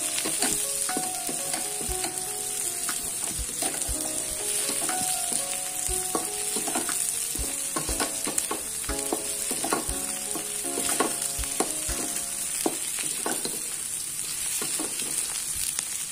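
Round eggplant halves with sliced shallots, garlic and chili stir-frying in hot oil in a metal wok. A steady sizzle runs under repeated scrapes and knocks of the spatula against the pan as the pieces are turned.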